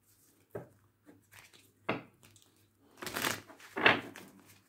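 Tarot cards being handled and shuffled: a couple of sharp single snaps, then a denser run of shuffling rasps about three seconds in.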